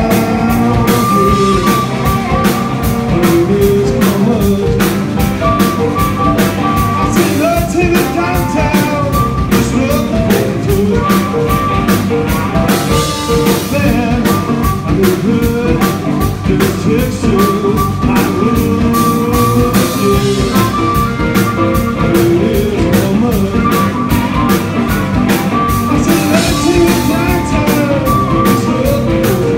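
Live blues-rock band playing: electric guitar, a harmonica wailing through a microphone in held, bending notes, and a Sakae Trilogy drum kit with Zildjian cymbals keeping a steady beat.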